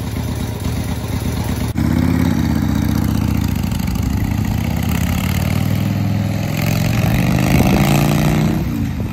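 1979 Harley-Davidson Ironhead Sportster's 1000cc V-twin running on a newly fitted S&S-style carburetor. It sounds briefly at idle, then, after a sudden jump in level, is ridden off, its note rising as it accelerates in the second half. The owner calls it running really, really good on the new carb.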